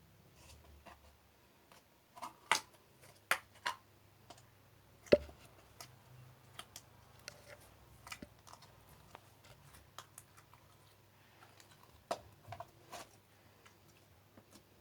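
Slime being mixed and kneaded by hand, giving irregular sticky clicks and pops, the loudest about five seconds in.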